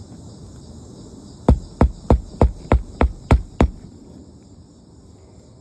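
Hammer driving a roofing nail through a shingle: eight quick, evenly spaced blows about three a second, starting a second and a half in, over steady insect chirring.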